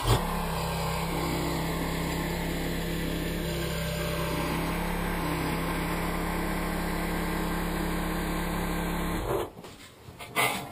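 Compact front-loader tractor's engine running steadily at an even pitch, then cutting off abruptly about nine seconds in.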